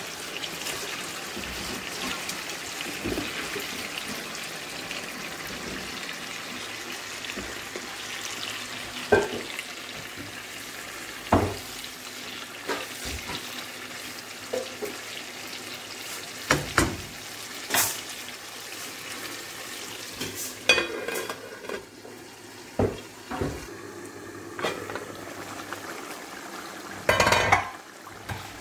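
Raw chicken pieces sizzling in hot oil and spice masala in a frying pan, a steady hiss. A wooden spatula knocks and scrapes against the pan several times as the pieces are stirred.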